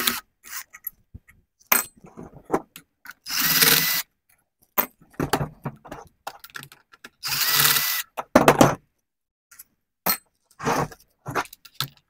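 Cordless drill/driver with a number 4 hex bit running in short bursts of well under a second, a couple of times, a steady high whine in each, backing out hex screws from a pool pump motor. Clicks and clatter of metal parts come between the bursts.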